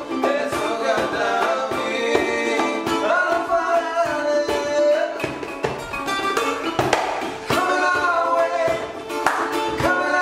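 Background music: a song with a singing voice over a plucked-string accompaniment.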